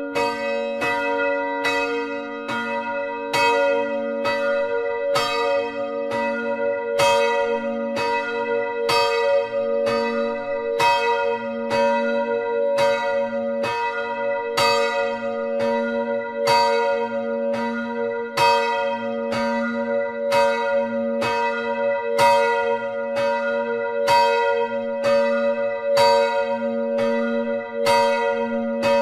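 Church bell no. 3 (Hl. Maria), cast by Grassmayr of Innsbruck in 1957 and tuned to B4 (h'), swinging and ringing alone in a steady even rhythm of clapper strikes. Each stroke rings on into the next.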